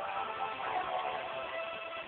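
Instrumental music from a slow ballad, with guitar notes ringing on as a held chord, and no singing.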